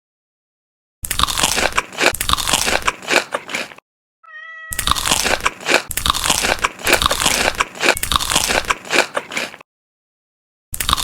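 Loud, crisp crunching and biting of crunchy food close to the microphone, in two long runs with a third starting near the end. Between the first two runs there is a brief pitched sound, and the gaps are dead silent.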